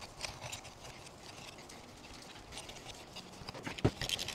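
Oil filter cutter being turned by hand around a steel oil filter canister to cut it open: faint, irregular clicks and scrapes, with one sharper knock near the end.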